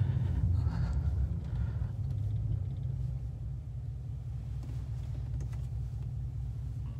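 Chevrolet Silverado's 6.2-litre V8 with a muffler delete, heard from inside the cab as a low steady rumble while the truck rolls to a stop and settles to idle.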